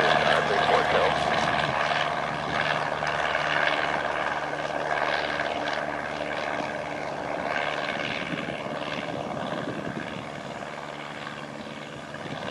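Cessna 172M's four-cylinder Lycoming O-320 engine and propeller at climb power just after takeoff, a steady drone fading gradually as the plane climbs away.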